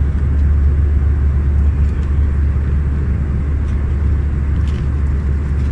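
Steady low drone of an Airbus A319 airliner's engines and airflow in cruise, heard inside the passenger cabin, with a couple of faint clicks about two-thirds of the way through.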